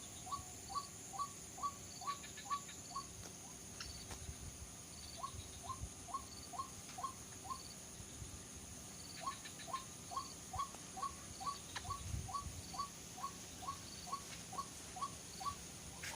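White-breasted waterhen (ruak-ruak) calling: a fast run of short, hooked notes about four a second, repeated in three runs with short breaks about 3 and 8 seconds in. Insects buzz steadily behind it.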